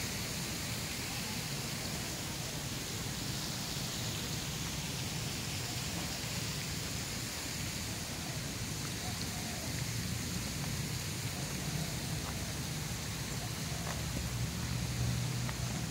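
Steady, even outdoor hiss with a low hum underneath, with no distinct events.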